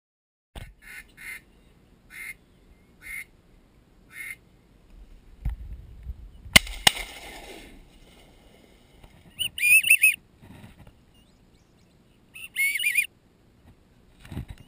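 Duck quacks: a run of short single quacks, then two longer quacking runs later on. Near the middle a louder double knock with a low rumble cuts in.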